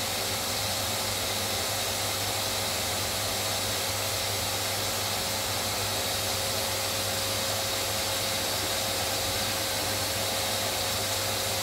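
Wood lathe running steadily while a turned hardwood bowl is sanded, a constant whir with a steady hum tone.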